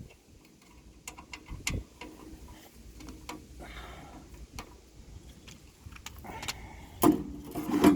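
Rivet and sluice box metal being handled as the rivet is fitted into its hole: scattered small clicks and clinks, with two louder knocks near the end.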